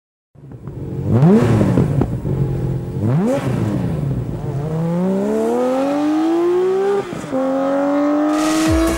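Car engine revved twice in quick blips, then accelerating with a steadily rising pitch. Near the end the pitch breaks and drops for an upshift, then climbs again.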